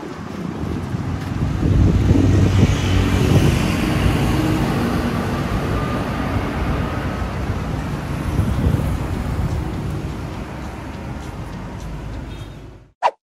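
City street traffic: cars, vans and motorbikes passing on a busy road, loudest a couple of seconds in as vehicles go by close, then easing off and cutting off abruptly near the end.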